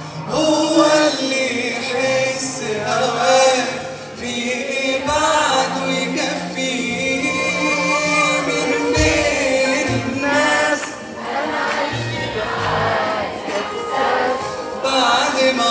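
Live Arabic pop song: a band playing with a male singer's voice over it.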